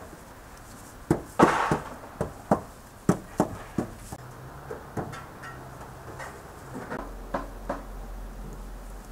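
Irregular sharp clicks and knocks from a charcoal grill holding skewered lamb jaws over the coals. A cluster of them comes in the first few seconds, the loudest about a second and a half in, and a few softer ones follow near the end.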